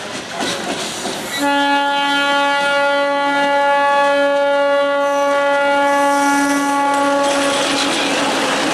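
Diesel locomotive horn sounding one long, steady single-note blast lasting about six seconds as the train comes in, starting about a second and a half in. Near the end it gives way to the loud rushing and clatter of the train running past.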